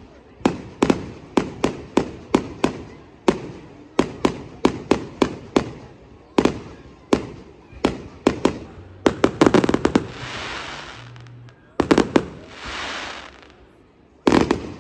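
Fireworks display: a rapid series of sharp aerial shell bursts, about two a second, with a quicker cluster of bangs about nine seconds in. Later come two drawn-out crackling hisses that swell and fade, each following a bang.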